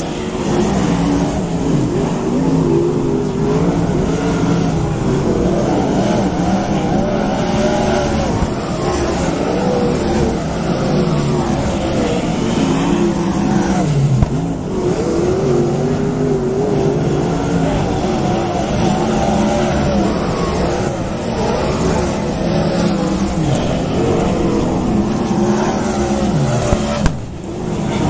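Several 360 sprint cars' V8 engines racing on a dirt oval, their engine notes rising and falling as the cars come around the track. The loudness dips briefly near the end.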